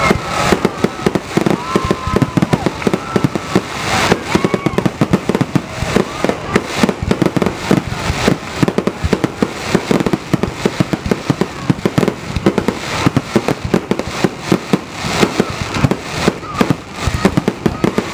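A fireworks display at full barrage: a rapid, continuous run of shell bangs and crackling bursts, several each second, with no let-up.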